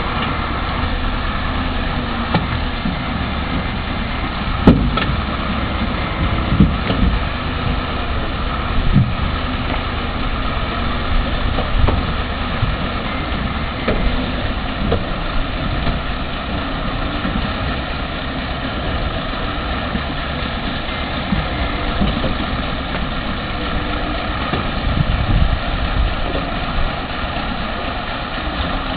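Heavy log truck's engine running steadily as the loaded truck creeps through a rocky, shallow river, with scattered thumps and knocks, the loudest about five seconds in.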